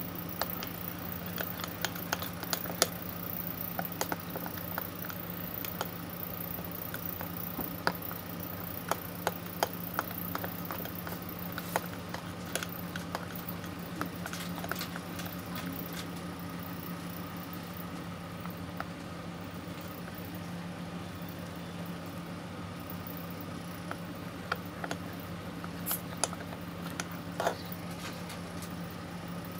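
Metal spoon stirring a thick flour-and-colour slime paste in a glass, with irregular clicks and scrapes of the spoon against the glass. A steady low hum runs underneath.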